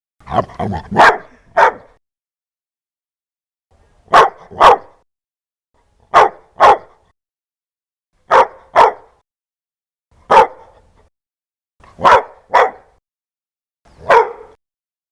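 A dog barking loudly in short bursts: a run of about four barks, then mostly pairs of barks roughly every two seconds, with dead silence between.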